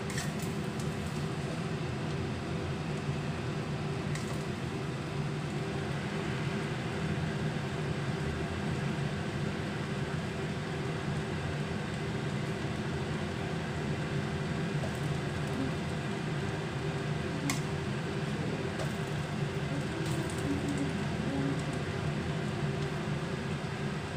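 Steady hum of a fan motor, with a few light clicks and scrapes of a spatula stirring fried rice in a wok.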